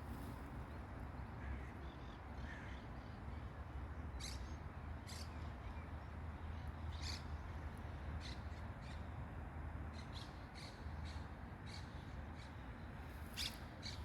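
Birds giving short, sharp calls every second or so, over a steady low rumble.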